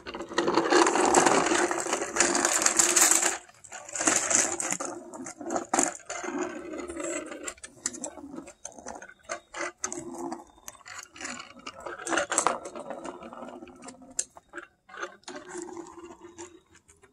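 A child's small bike rolling over asphalt, its wheels and frame making a running rattle with scattered knocks and clicks. The rattle is loudest in the first three seconds and varies after that.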